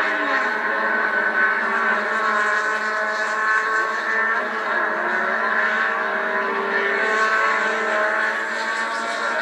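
Several racing car engines running hard and passing, their overlapping notes rising and falling as the cars go by. The sound is thin, with no bass, as if heard through a television speaker.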